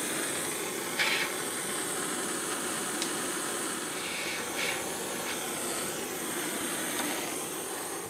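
Propane torch flame hissing steadily as it heats a copper wire splice for soldering. The hiss fades away near the end as the torch is taken off.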